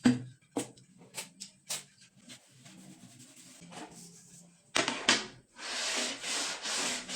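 Several sharp wooden knocks and taps, then from about halfway a steady back-and-forth rubbing of wood, about two to three strokes a second, as a wooden runner is worked.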